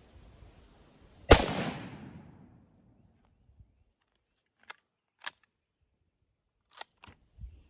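A Carcano M91 cavalry carbine fires one shot, which rings out and dies away over about a second and a half. Then comes the bolt being worked to chamber the next round: four short metallic clicks spread over the next few seconds.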